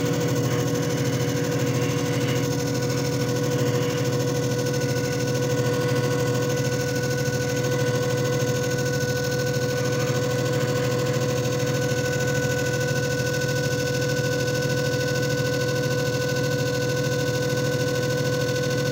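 JFJ Easy Pro disc repair machine running its cycle: a steady motor hum with a constant mid-pitched whine over it.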